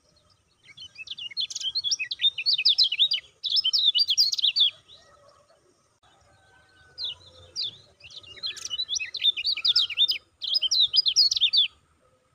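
Kecial kuning white-eye singing: two bouts of rapid, high twittering chirps, the second starting about seven seconds in.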